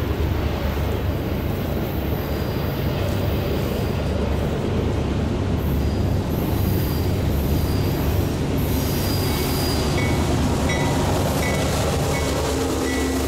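Union Pacific diesel locomotive passing close, its engine running with a steady heavy rumble, followed by double-stack intermodal container cars rolling by on the curve. From about ten seconds in come short, repeated high-pitched wheel squeals.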